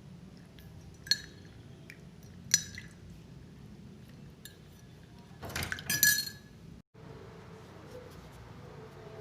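A spoon clinking against a drinking glass: two sharp, ringing taps about one and two and a half seconds in, then a louder run of clinking and rattling about six seconds in.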